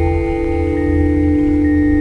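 Experimental electronic drone music: several steady, organ-like tones held together over a low hum, with single higher tones quietly coming in and dropping out partway through.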